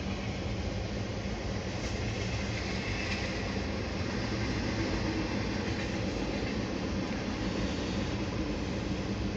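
CSX freight train's cars rolling past, a steady noise of wheels on the rails.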